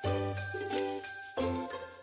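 Closing theme music: bright chiming notes over a bass line, a new note struck every half second or so and each one ringing and fading.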